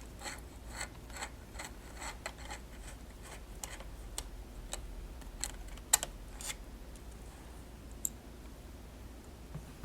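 A run of small sharp clicks, about two or three a second at first, then fewer and further apart, with the loudest about two-thirds of the way through, over a faint low hum.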